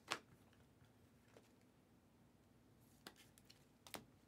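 Near silence broken by trading cards being handled by hand: one sharp click just after the start, then a few light clicks near the end.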